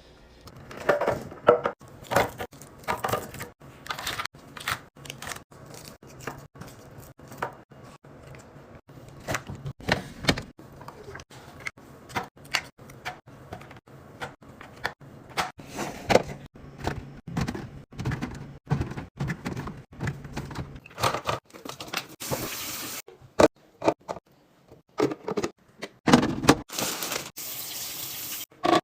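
Food containers and packages being handled and set down while restocking a fridge: a busy run of clicks, taps and knocks of plastic and glass. Liquid runs or pours twice, briefly about twenty-two seconds in and again near the end.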